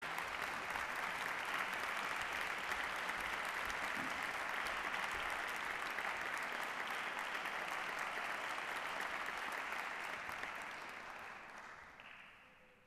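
Audience applauding steadily, dying away over the last couple of seconds as the pianist sits down at the piano.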